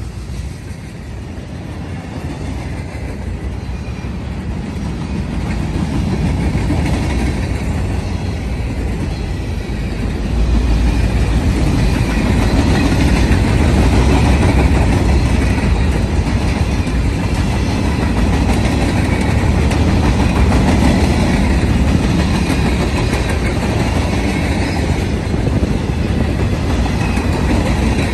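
CSX manifest freight train passing, its locomotives and freight cars rumbling heavily on the rails. It grows louder until about ten seconds in, then rolls by steadily.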